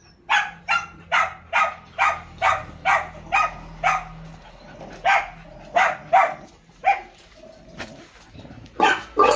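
A dog barking repeatedly in short, fairly high barks, about two a second for the first four seconds, then more scattered barks to the end.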